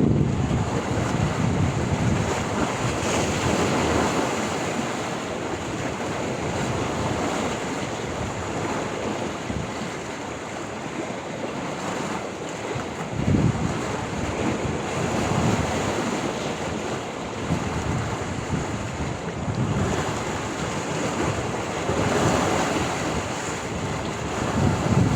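Sea waves breaking and washing on the shore, a steady rushing surf, with wind buffeting the microphone in low gusts every several seconds.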